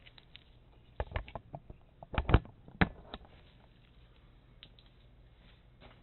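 A handful of short knocks and clicks of handling, hard objects being moved and set down, loudest in a cluster a little over two seconds in, then settling to a faint steady low hum.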